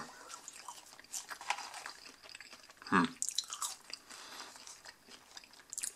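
A person chewing McDonald's french fries, soft irregular mouth and chewing sounds, with a brief voiced sound about three seconds in.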